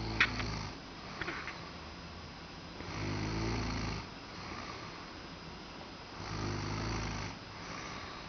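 A sleeping person snoring: a low, rasping snore about every three seconds, three in all, with softer breathing in between. A few sharp clicks come in the first second and a half.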